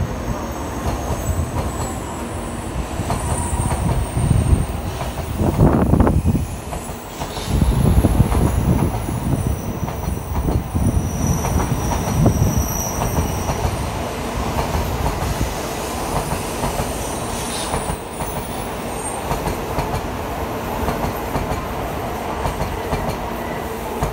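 Tokaido Shinkansen N700A trainset running past at low speed, its wheels rumbling and clattering over the rails, with heavier rumbles twice in the first half. Thin high-pitched wheel squeals come and go during the first half.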